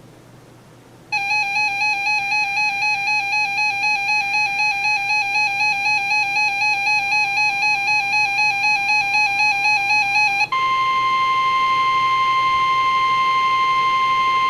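Weather radio alert alarm: a loud, pulsing electronic tone, about three pulses a second, starts about a second in. About ten seconds in it gives way to the steady 1050 Hz NOAA Weather Radio warning alarm tone, which signals that a warning broadcast is about to follow.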